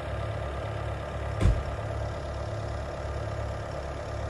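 Skid steer engine idling steadily, with a single thump about one and a half seconds in.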